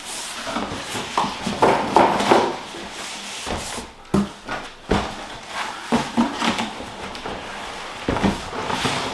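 Cardboard boxes scraping and rubbing as a boxed air fryer oven is slid out of its outer cardboard shipping carton, with several dull knocks as the boxes bump against each other and the worktop.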